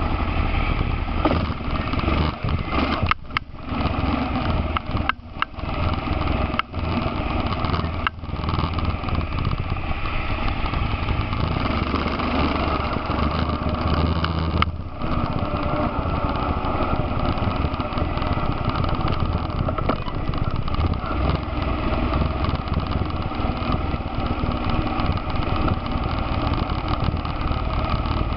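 Honda Foreman ATV's single-cylinder four-stroke engine running steadily while riding along a rough trail. There are several brief cuts in the sound during the first fifteen seconds.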